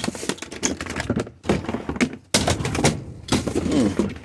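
Rapid clicking and knocking of hard objects being handled and shifted around while rummaging through junk.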